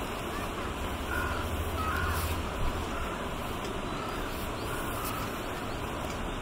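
Steady outdoor background noise with wind rumbling on the microphone between about one and two and a half seconds in, and a bird calling five or six times over it, once about every second.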